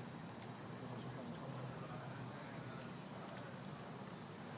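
Steady high-pitched insect chorus, a continuous trill of crickets or similar insects, over a faint low hum of outdoor background noise.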